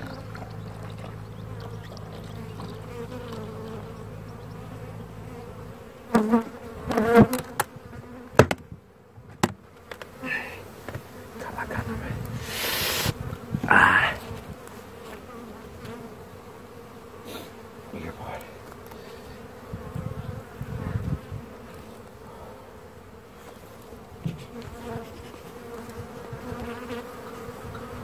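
Honeybees buzzing over an open hive, with a run of knocks and clatter from hive woodwork being handled between about six and fourteen seconds in.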